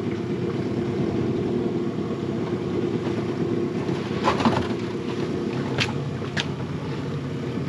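Boat's outboard motor running steadily at low revs, with a few sharp knocks and clicks about four, six and six and a half seconds in.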